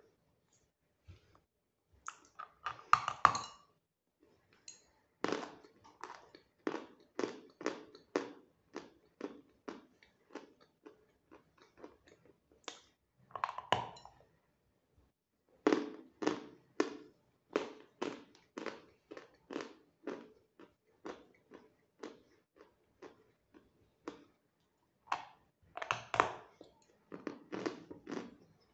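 Natural edible chalk being bitten and chewed: three bites with louder, denser crunches, about 3 s in, around the middle and near the end, and between them steady chewing crunches about two a second. The chalk is fairly hard and crunches crisply.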